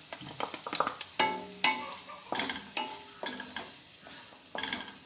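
Grated coconut frying in ghee in a nonstick kadhai, with a soft sizzle, while a spatula stirs and scrapes across the pan about twice a second.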